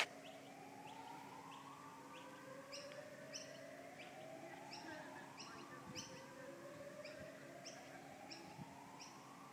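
A faint siren wailing in slow rising sweeps, each climbing for about three seconds before starting low again, with birds chirping in short, quickly repeated high notes.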